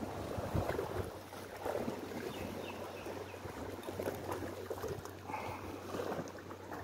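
Small waves lapping and sloshing against shoreline rocks: a steady wash of water broken by small irregular splashes.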